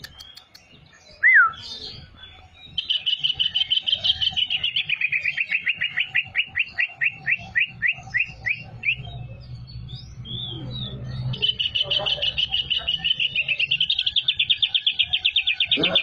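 Greater green leafbird (cucak ijo) singing canary-like phrases. There is one loud whistled note about a second in, then a long rapid trill that slows and falls in pitch. After a pause of about two seconds, a second fast trill follows.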